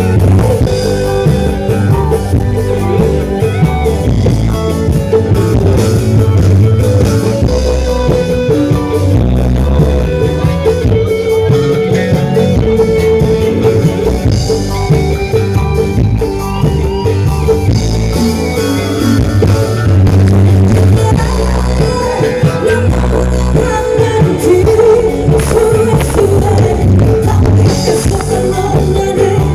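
Loud music with singing and heavy bass, played through a sound system that is said to be broken.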